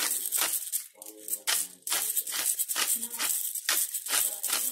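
Pepper mill grinding black peppercorns in quick crunching twists, about three or four a second, with a short pause about a second in.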